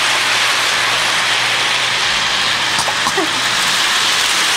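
Electric toy train running round its track: a steady whirring rumble of the motor and wheels on the metal rails, with a low steady hum beneath.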